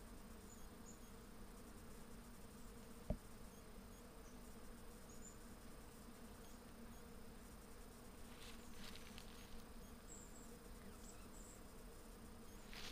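Bees buzzing, a faint steady low hum. A single sharp click about three seconds in.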